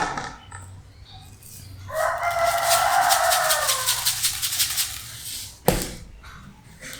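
A rooster crowing once: one long call of about two and a half seconds that drops in pitch at its end. A sharp knock follows about a second later.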